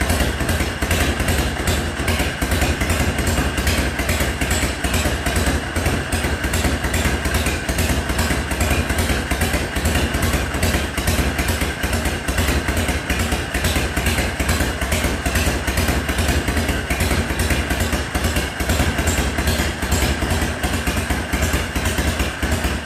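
Harley-Davidson V-twin engine, freshly installed in a custom chopper frame, running steadily at idle with an even pulsing beat. The builder judges it to be running well, with a good engine feel and the oil pump circulating oil properly.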